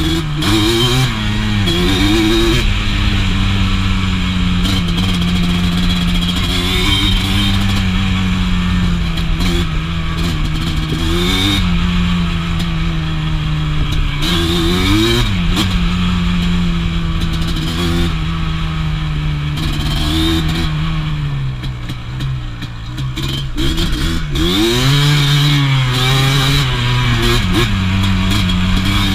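Yamaha single-cylinder quad engine running under load while riding, mostly holding steady revs. Several times the revs swing quickly up and down, and about two-thirds through the throttle eases off briefly before it picks up again.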